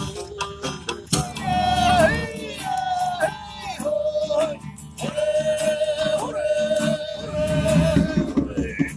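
Mongolian folk-rock band playing live, male vocals over plucked strings and guitars, with a long held sung note through the second half, recorded on a phone microphone.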